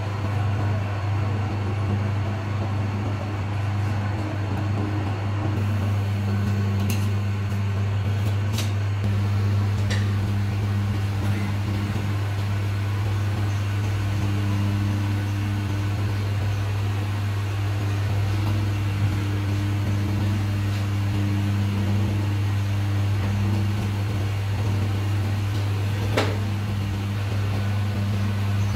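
Steady electric-motor hum of a lathe holding a truck brake drum, with a handful of sharp metallic clicks from work on the drum and chuck, one near the end.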